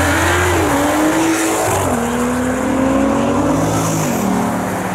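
BMW M135i (F21), turbocharged straight-six, accelerating away hard. The engine note climbs and drops at each upshift, about two seconds in and again about four seconds in.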